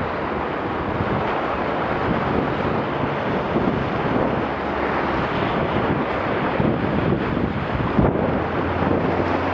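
Wind buffeting the microphone over water rushing and splashing along the hull of a Laser 2 dinghy sailing at about 9 knots. There is a single thump near the end.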